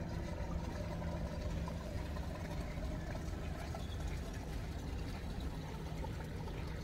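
Road traffic: vehicle engines running with a steady low rumble.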